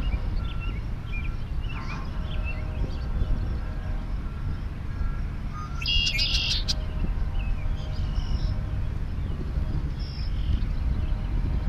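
Freight train's lead diesel locomotives, three Canadian Pacific units and a trailing KCS ES44AC, approaching with a steady low engine rumble. Birds chirp over it, with one louder trill about halfway through.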